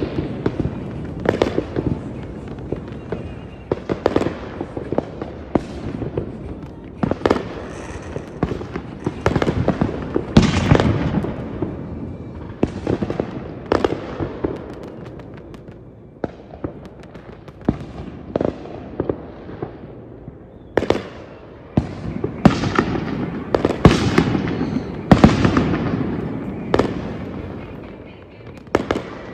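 Fireworks display: aerial shells bursting in an irregular series of sharp bangs, often one or two a second, over a low rumble. The loudest bangs come about three quarters of the way through.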